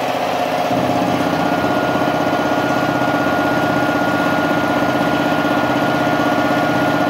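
MultiPro Expert twin-cylinder, belt-driven 1 HP air compressor running steadily as it pumps up its 100-litre tank, with an even pulsing hum; it gets a little louder under a second in.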